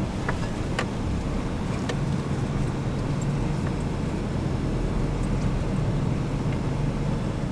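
A four-wheel-drive vehicle's engine running with a steady low drone, and scattered sharp clicks and knocks over it.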